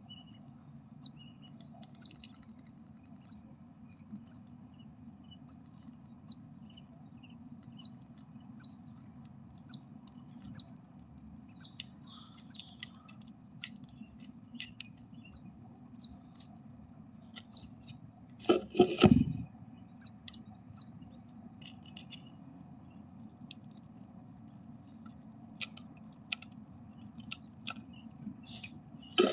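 Great tits in a nest box giving many short, high peeps at irregular intervals over a steady low hum. About two-thirds of the way in there is a loud rustle lasting about a second, as the bird shifts in the nest.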